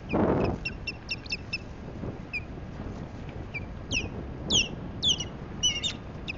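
Osprey calling in alarm at an intruding osprey: a fast run of short high chirps, then louder whistled calls that fall in pitch, coming in pairs from about four seconds in. It opens with a brief rush of wingbeats as an osprey flaps in over the nest.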